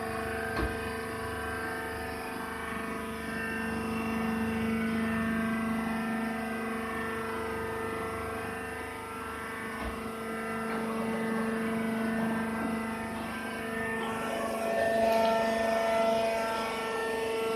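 Hydraulic peanut shell baler running: a steady mechanical hum from its motor and pump, with a couple of brief knocks.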